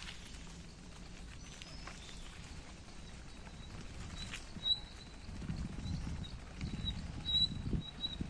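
Ride noise of a bicycle rolling along a paved path: a low rumble with light rattles that grows louder about five seconds in. A high, thin chirping call repeats over it in the second half.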